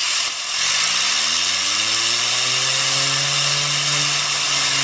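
Compressed air hissing steadily from an air-compressor blow gun at a fidget spinner, which whirs up to speed: its pitch climbs for about two seconds from half a second in, then holds steady.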